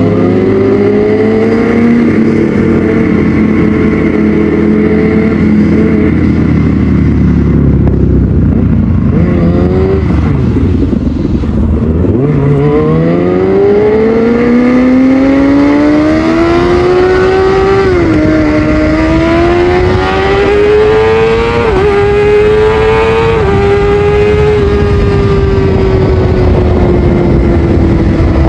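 Kawasaki ZX6R inline-four engine through a Yoshimura exhaust, under way: the revs ease down to a low point about ten seconds in, then climb hard through several gears with a brief dip at each upshift, and hold a steady cruise near the end.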